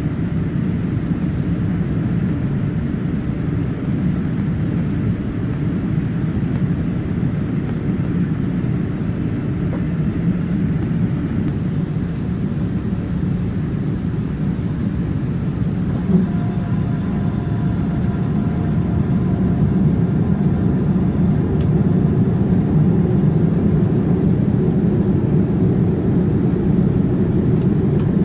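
Cabin noise of a Boeing 787-9 in flight after takeoff: the steady low roar of its GE GEnx engines and the airflow past the fuselage, heard from a window seat over the wing. About halfway through, a few faint steady whining tones join in, and the roar grows a little louder toward the end.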